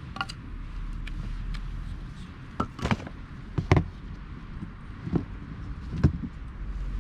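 Hardwood campfire crackling, with scattered sharp pops and a few louder knocks, the strongest about three, four and six seconds in.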